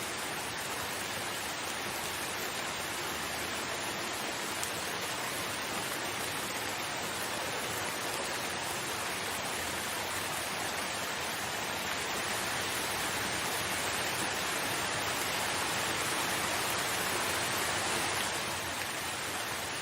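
Steady rain falling as an even hiss, swelling a little louder in the second half and easing again shortly before the end.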